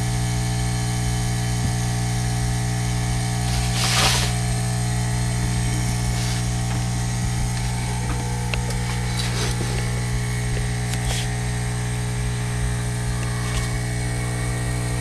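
Steady low electrical hum, with a brief rustle about four seconds in and a few faint clicks as wires are handled and routed inside the radio.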